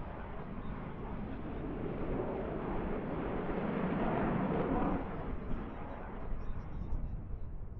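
F-22 Raptor's twin Pratt & Whitney F119 turbofan engines roaring as the jet flies a display manoeuvre overhead, the noise swelling to a peak about four to five seconds in and then fading.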